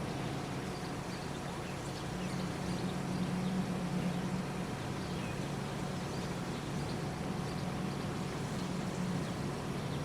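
A steady low engine-like hum, with faint short high chirps scattered through it.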